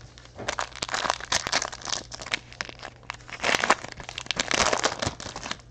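Foil wrapper of a Panini Chronicles baseball card pack crinkling as it is opened by hand, in two bouts of crackling with a short pause in the middle.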